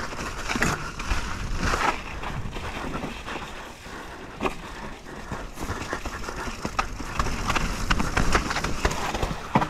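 Mountain bike riding down a muddy, snowy trail: tyres running over the ground, with many short clicks and rattles from the bike throughout.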